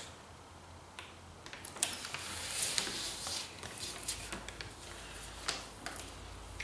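Hands pressing and rubbing aluminium foil tape down along a box seam, giving faint crinkling, rubbing and small taps, over a steady low hum.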